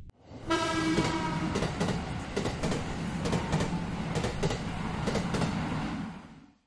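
A train passing. A short horn-like tone sounds about half a second in, then a rumble with wheels clacking over rail joints fades out near the end.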